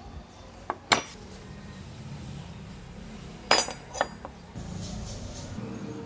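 Ground steel kris blade and a small steel piece set down on a wooden table, clinking against each other: one sharp clink about a second in, then a quick cluster of clinks past the middle.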